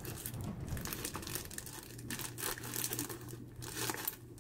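Pipe-tobacco pouch being opened and handled: irregular crinkling and rustling of its wrapper.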